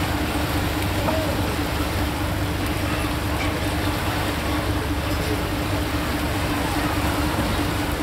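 An engine running steadily: a constant hum over low rumble and a wash of background noise.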